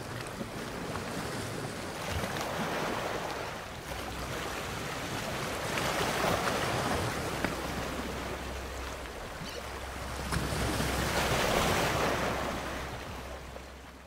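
Atlantic surf washing against a rocky volcanic shoreline, swelling and fading in slow surges about every four to five seconds, over a low wind rumble on the microphone.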